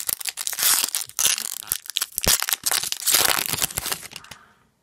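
Foil wrapper of a hockey card pack being torn open and crinkled by hand, a dense crackling that stops near the end.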